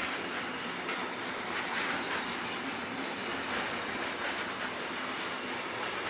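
Freight wagons of an intermodal train loaded with containers and truck trailers rolling slowly past as the train pulls away from a stop. Their steel wheels clatter on the rails, with brighter swells about once a second.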